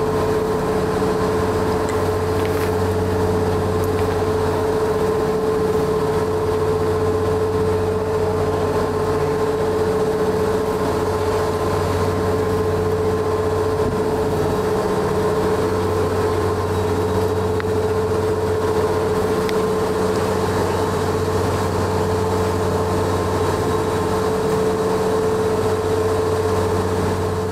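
Ferry's engine running steadily underway, heard aboard: an even low drone with a steady whine above it that does not change.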